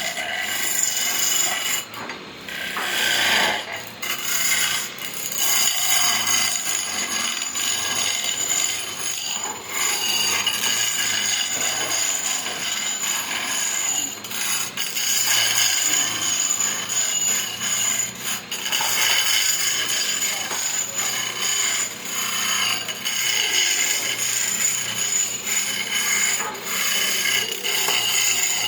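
Sawmill saw cutting through wood: a steady rasping with high ringing tones running through it, easing briefly a few times.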